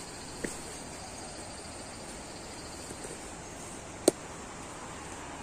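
Insects chirring steadily and high-pitched over a constant background hiss. A sharp click comes about four seconds in, and a fainter one about half a second in.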